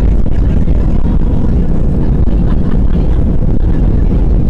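Airbus A320 cabin noise on the runway: the engines and the rolling of the wheels make a loud, steady, low noise, heard from a window seat.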